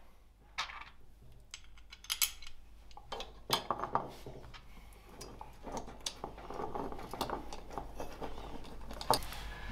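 Metal bracket, bolt and nut being handled and fitted together by hand, giving scattered light clicks and clinks, with soft handling rustle in between.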